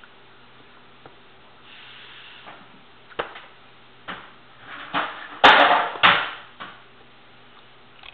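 A baby biting and chewing a piece of raw onion: scattered knocks and crunches, with one loud crunching burst about halfway through.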